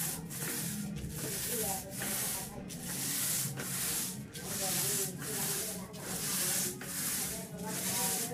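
Long-handled paint roller spreading epoxy top coat over a vinyl-flake floor: a rubbing hiss in back-and-forth strokes, dipping between passes a little more than once a second, over a steady low hum.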